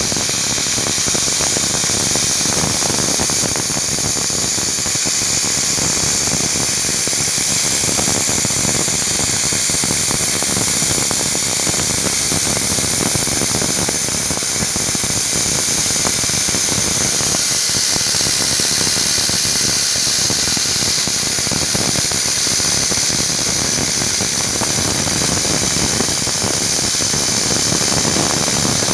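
Romi Interact CNC milling machine running as it machines a thrust-bearing ball cage: a steady, loud hiss with a high whine over it.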